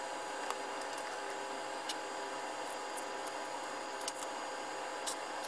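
A few light clicks of small tools and parts being handled on a workbench, four in all, over a steady hiss with faint hum tones.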